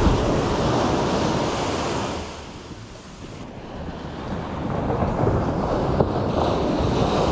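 Small waves breaking and washing up a sandy beach, with wind buffeting the microphone. The surf dies down about three seconds in, then builds again.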